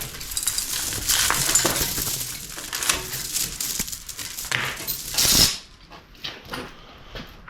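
Metal parts and tools clinking and rattling as they are handled, with a dense run of clicks that stops suddenly about five seconds in, followed by a few fainter clicks.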